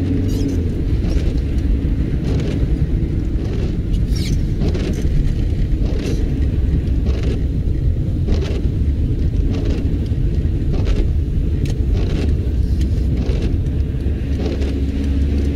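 Low road and engine rumble inside a moving car on a wet street, with short swishes of the windscreen wipers every second or so.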